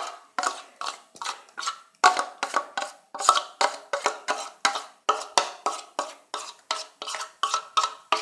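A spoon repeatedly knocking against a steel bowl while batter is emptied out, each knock ringing briefly, about two to three knocks a second.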